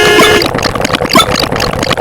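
Loud, layered sound effects: a held horn-like tone cuts off about half a second in and gives way to a busy engine-like rattle with scattered thuds.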